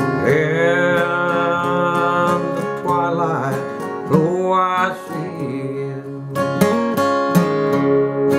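Acoustic guitar accompaniment with a man's voice singing long, held notes that bend in pitch, opening a country ballad; the strumming comes forward over the last two seconds.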